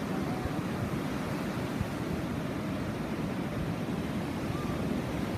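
Ocean surf breaking and washing on a beach: a steady, low rushing noise with no single wave standing out.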